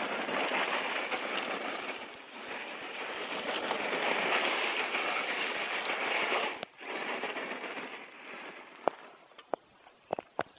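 Loose gravel crunching and spraying under the tyres of a Hot Bodies E-Zilla 1:10 electric RC monster truck spinning circles, a dense crackle that drops out briefly past halfway and then goes on quieter, with a few sharp clicks near the end.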